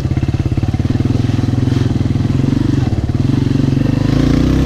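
Yamaha Raptor 125 ATV's single-cylinder four-stroke engine running at low trail speed with an even, rapid pulse, rising in pitch near the end as it picks up revs.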